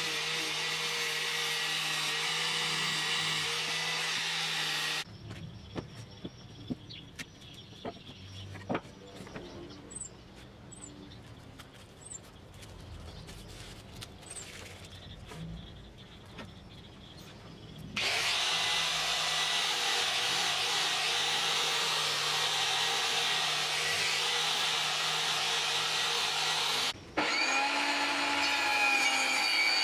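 A handheld angle grinder fitted with a sanding disc runs against plywood edges and stops about five seconds in. A quieter stretch of light knocks and taps follows as plywood pieces are handled on a table. About eighteen seconds in, a power tool runs loudly again, and after a short break near the end a table saw runs.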